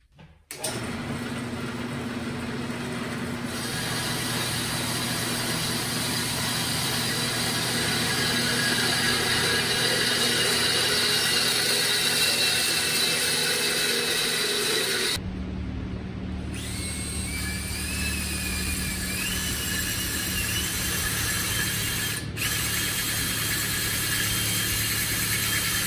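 Grizzly G0561 metal-cutting bandsaw running steadily as it cuts through steel tube. About 15 seconds in it gives way to a cordless drill driving a tube notcher's hole saw into steel tube, its motor whine rising and stepping in pitch.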